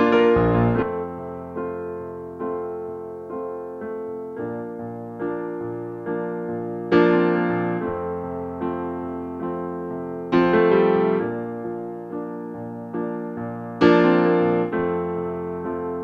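Slow piano music, single notes and chords struck and left to fade, with louder chords about seven, ten and fourteen seconds in.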